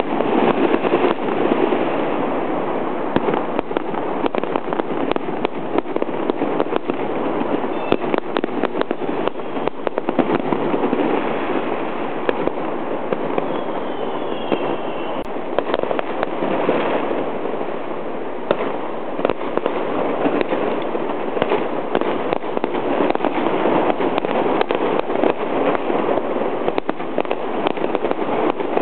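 Fireworks and firecrackers going off without pause, a dense barrage of countless overlapping bangs and crackling.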